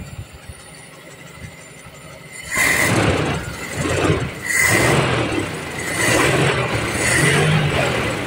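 Toyota 7K four-cylinder carbureted engine idling quietly, then revving up and dropping back four times in quick succession, with a high whine rising along with each surge.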